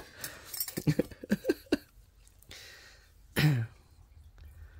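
Metal spoons clinking as one is taken from a glass, then the spoon scraping through a carton of raspberry sorbet, with a single short cough about three and a half seconds in.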